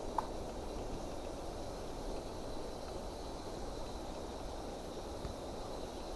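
Steady, even rushing noise from a small propane heater burning, with a pot of coffee water heating on top of it.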